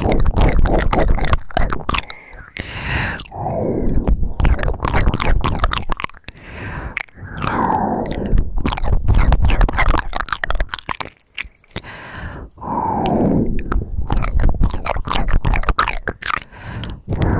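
Close-miked wet mouth sounds: dense lip and tongue clicks and smacks. Every few seconds they are broken by a long, breathy sigh that falls in pitch.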